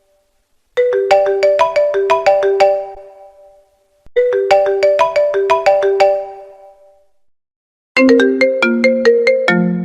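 iPhone ringtones: a bright phrase of quick marimba-like mallet notes plays twice with a short silence between. About eight seconds in, a different, lower-pitched ringtone melody starts.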